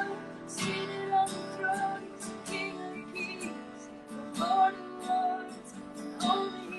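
Acoustic guitar strumming chords, a slow worship-song accompaniment with regular strokes every half second to a second.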